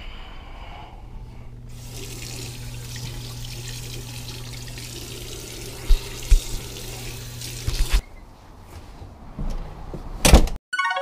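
Bathroom sink tap running steadily for about six seconds, with a low hum under the water, then turned off. A few knocks come near the end of the running.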